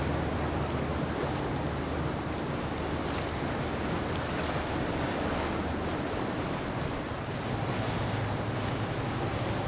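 Steady rush of water and wind with a boat engine's low hum underneath; the hum eases off for a few seconds in the middle and comes back near the end.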